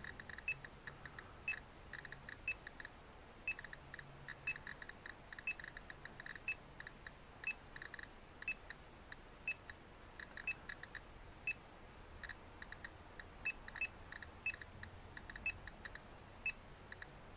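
GQ GMC-320 Plus Geiger counter beeping once for each count, short sharp beeps coming at an irregular, fairly quick rate, several a second at times. It is held right beside a rock from a uranium mine, and the raised count rate shows the rock is radioactive.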